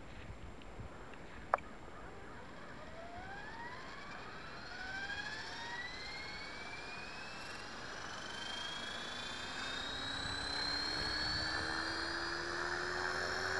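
T-Rex 450 Pro electric RC helicopter spooling up on the ground. A single sharp click comes about a second and a half in, then the motor and gear whine rises steadily in pitch as the rotor head slowly comes up to speed.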